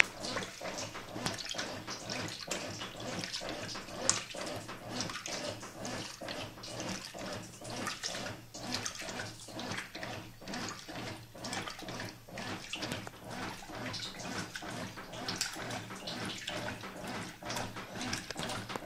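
Brastemp Clean 6 kg top-loading washing machine in its normal agitation cycle, the agitator swishing back and forth and churning water and a double duvet in rhythmic sloshes.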